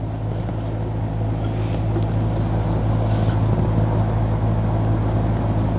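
A steady low droning hum that holds one pitch and level throughout.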